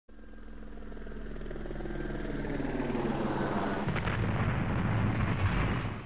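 Intro sound effect: a low rumble with a steady hum underneath, swelling steadily louder over about six seconds, then cutting off suddenly.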